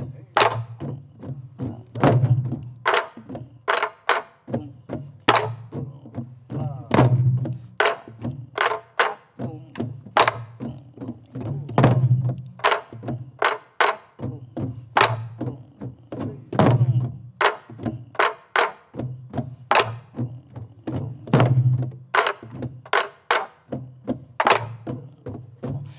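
A group of soribuk (Korean pansori barrel drums) playing together in a jungjungmori rhythm pattern. Deep booms come from palms on the drumheads (gung), and sharp cracks come from sticks on the wooden shells (ttak), in a steady repeating cycle.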